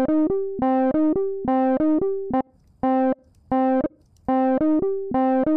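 Saw-wave synth notes from Ableton's Operator, run through a FabFilter Volcano 3 filter, looping a quick two-note figure: a lower note, then a higher held one, with a few short breaks around the middle. The filter's LFO is set to re-trigger on each note but restarts only at the top of the loop, because the plug-in is not receiving the MIDI notes.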